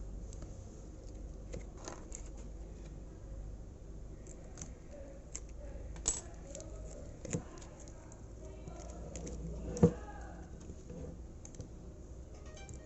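Scattered small clicks and taps of hands working on an opened lithium battery pack as it is taken apart, with a sharper knock about ten seconds in.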